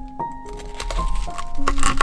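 Background music with sustained notes, over the crisp crunching of a kitchen knife cutting through the toasted crust of a pressed hot sandwich, loudest near the end.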